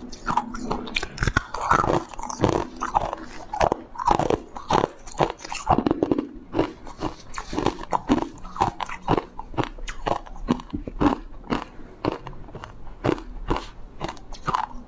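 A person biting and crunching through pieces of ice, chewing between bites: a rapid, irregular run of sharp crunches, several a second.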